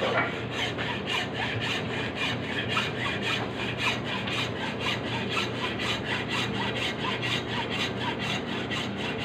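Hacksaw blade rasping back and forth through a rock-hard, porous block of food in quick, steady, evenly repeated strokes; the block is as hard as iron.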